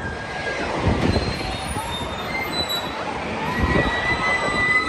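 Giant Dipper wooden roller coaster train running on the track: a steady low rumble with high wheel squeal that slides up and down in pitch.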